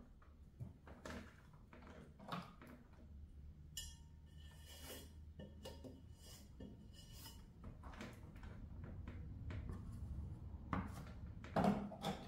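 Light scraping, clicks and clinks from hands and tools handled over a pottery wheel's metal wheel head. There is a louder clatter near the end.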